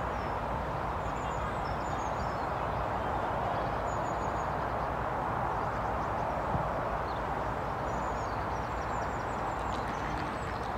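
Steady rushing outdoor background noise with a low rumble, and faint short high chirps scattered through it.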